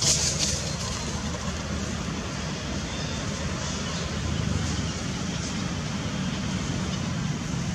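Steady low engine rumble under a wash of outdoor background noise.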